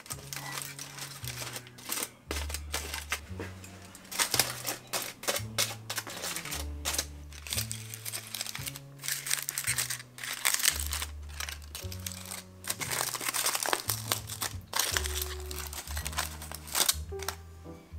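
Aluminium foil crinkling and rustling in irregular bursts over background music with a slow stepping bass line.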